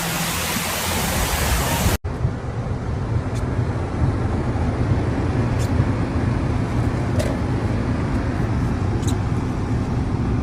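A loud, even hiss that cuts off suddenly about two seconds in, then a steady low rumble of motor vehicles with a few faint clicks.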